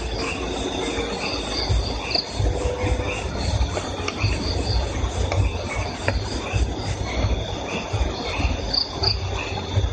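Crickets chirping steadily in repeated short pulses over a continuous high, even insect trill, with a low uneven rumble underneath.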